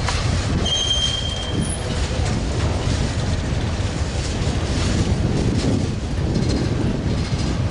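Freight train cars rolling past with a steady, heavy rumble, and a brief thin high wheel squeal about a second in.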